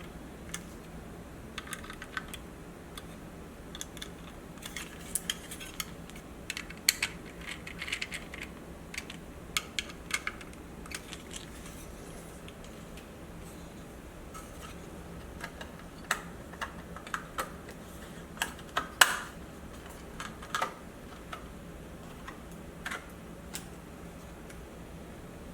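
Irregular light clicks and taps on a Dell Latitude E5540 laptop, bunched in short runs, with a sharper knock about two-thirds of the way through and a steady low hum underneath.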